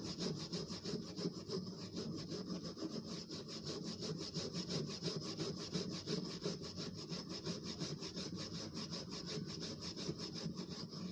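A sponge scrubbed rapidly back and forth over a petrol-wetted sharpening stone in quick, even rasping strokes, scouring oil deposits from the clogged surface. It stops abruptly at the end.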